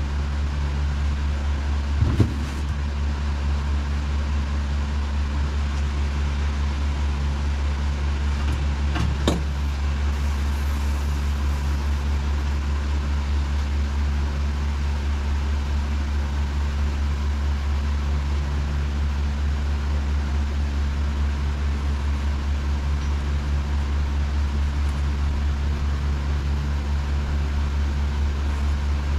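A steady, loud, low machine hum that never changes, with two brief knocks, one about two seconds in and one about nine seconds in.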